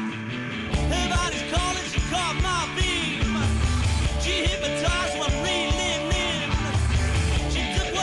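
Rock band playing with electric guitar, bass and drums to a steady beat; the drums and bass come in fully just under a second in.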